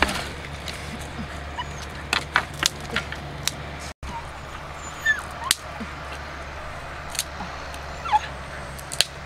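Dogs whimpering with a few short yips, among a scatter of sharp clicks and snaps.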